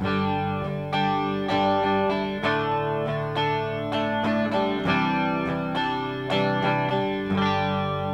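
Electric guitar played through a Small Clone–style analog chorus pedal, the Stomptown Penny Royal: a loud chord struck at the start, then a string of picked chords about every half second to second, each left ringing.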